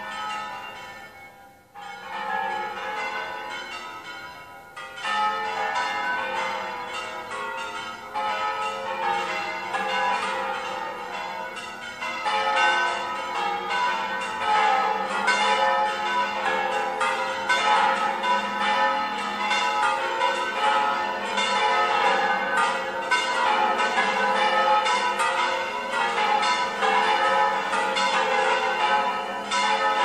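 The bells of the Mosque-Cathedral of Córdoba's bell tower pealing together for a feast day: many overlapping strikes that ring on into one another. After a brief dip near the start, the peal grows louder and busier in steps, about two seconds in, about five seconds in, and again around twelve seconds.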